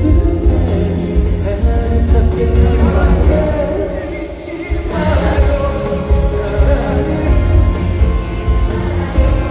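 Live pop song sung by a male vocal group over an amplified band, heard through an arena's PA from the audience, with heavy bass. The music thins briefly about four seconds in, then swells back fuller about a second later.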